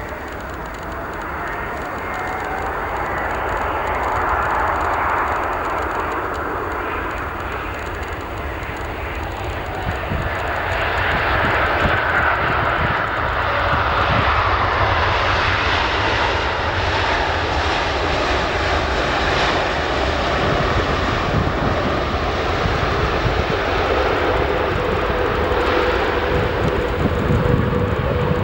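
Jet airliner on landing approach passing by: engine roar and whine swell in loudness over the first half and stay loud, with a whining tone that slides down in pitch as it goes past, over a steady low rumble.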